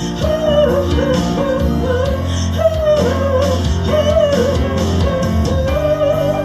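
Live band playing a slow rock ballad, with guitar, bass and drums under a wavering melody line that moves in short phrases.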